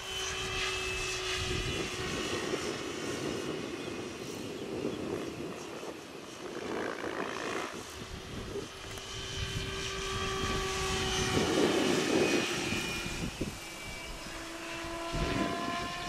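Align T-Rex 760 radio-controlled helicopter in flight: a whine from its rotors and motor whose pitch drifts up and down as it manoeuvres. Gusty wind rumbles on the microphone.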